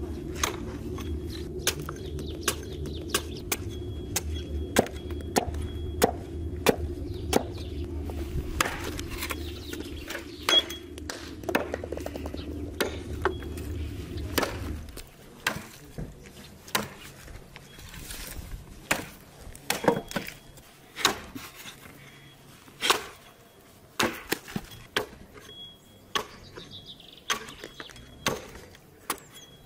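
Hatchet chopping and trimming a forked green-wood branch: sharp wood blows, roughly one a second, some heavier and some lighter. A low steady rumble runs under the first half and stops about halfway.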